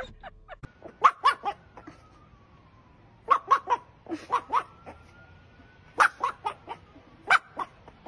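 A dog barking in short, sharp barks that come in quick clusters of two to four, with pauses between the clusters.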